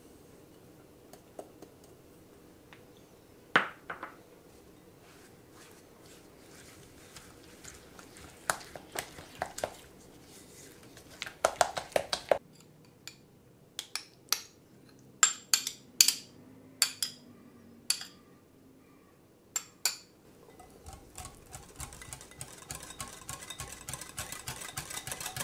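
A silicone spatula scraping and knocking against a glass mixing bowl as sugar is worked into cream cheese, with scattered sharp clinks on the glass. About three quarters of the way through, a wire balloon whisk starts beating fast in the bowl, a quick run of small ticks against the glass.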